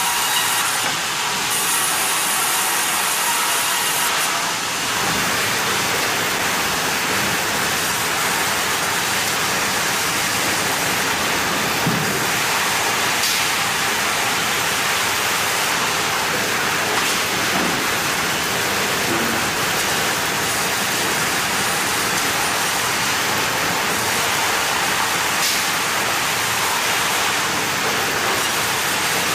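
Sawmill machinery running, a steady rushing noise at an even level with no clear rhythm.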